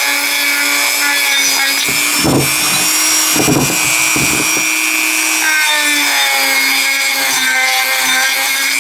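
Dremel rotary tool with a sanding drum running as a steady high whine, sanding out the cap bore of a U-joint yoke ear, with scraping as the drum bears on the metal. Its pitch drops slightly a little past halfway, and it switches off near the end.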